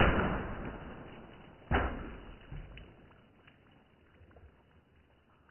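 Two sharp BB gun shots about 1.7 seconds apart, each with a long fading tail as in slowed-down audio, followed by a fainter knock and a few light ticks.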